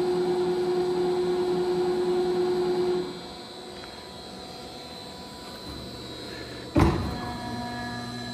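110-ton single-phase CNC hydraulic press brake working a bend in a 4 ft length of quarter-inch steel. A steady pump whine drops off sharply about three seconds in to a lower hum. A sharp knock comes near the end, followed by a steady hum of several tones.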